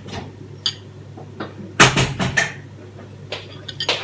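Metal spoon clinking against a ceramic bowl amid kitchen dish clatter: a few sharp knocks about two seconds in and a few lighter clicks near the end.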